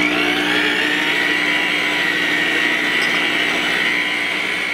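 Electric tilt-head stand mixer switched on and running steadily with its flat beater through a bowl of warm molasses, brown sugar and butter: a steady motor whine that rises briefly as it comes up to speed at the start.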